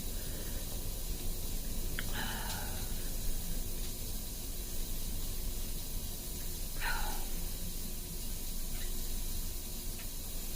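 Steady background hiss, with a couple of brief soft noises about two seconds in and again about seven seconds in.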